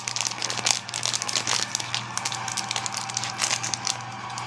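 Plastic packaging crinkling and rustling in irregular bursts as trading cards are handled and unwrapped, over a steady low hum.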